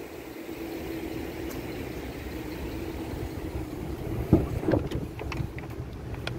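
Rear door of a 2010 Chevrolet Avalanche being opened: the handle pulled and the latch releasing with a sharp click about four seconds in, followed by a few lighter clicks and knocks as the door swings open. A steady low hum runs underneath.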